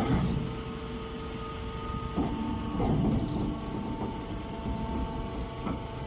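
Hydraulic straw baler's motor and pump running with a steady hum, with a few clunks, one about two seconds in and another near the end.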